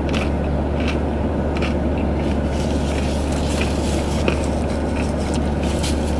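Car running with a steady low hum heard from inside the cabin, with soft irregular clicks of someone chewing food.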